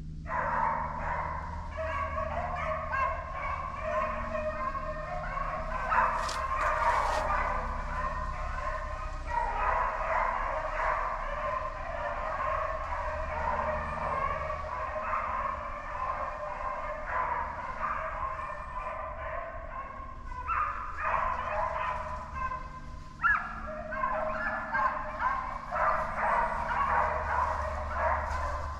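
A pack of deer hounds baying together in full cry, the sound of dogs running a scent trail. The chorus starts suddenly at the beginning and keeps on, with short breaks about a third of the way in and twice later on.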